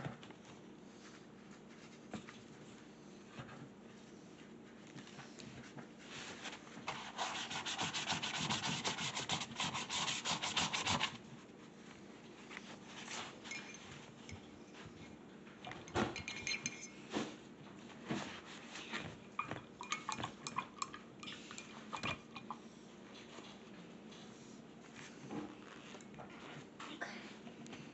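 A run of fast, close rubbing and scrubbing strokes lasting about five seconds, followed by scattered light taps and knocks as painting supplies are handled on the table.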